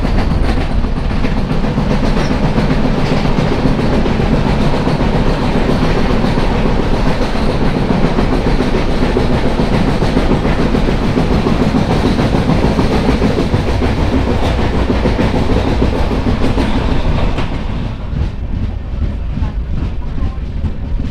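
Mangala Lakshadweep Express running at speed over the Mandovi river bridge, heard from on board: loud, steady noise of coach wheels on the rails. About 17 seconds in it grows quieter and loses its hiss.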